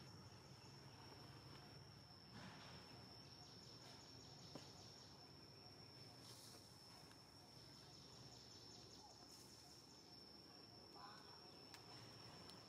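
Near silence: faint outdoor background with an insect's steady high-pitched drone. Short stretches of pulsing trill join it now and then.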